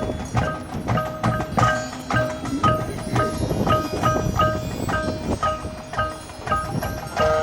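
Marching band music led by the front ensemble's mallet percussion: marimba- or bell-like instruments strike a repeating pattern of short notes, about three a second, over soft low drum hits.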